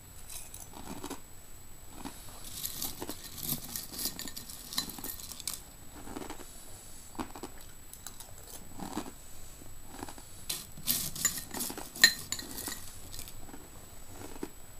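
Irregular clinks and crackly rustling from a ceramic bowl of dry cereal flakes as the flakes are stirred and picked at, with one sharp clink against the bowl about twelve seconds in.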